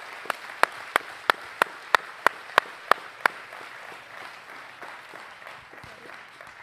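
Congregation applauding, with one person's loud, close hand claps about three a second over the first three seconds standing out above it. The applause then slowly dies down.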